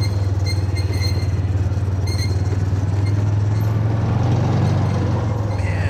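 A vehicle running steadily, heard from on board during a ride: an even, low rumble throughout.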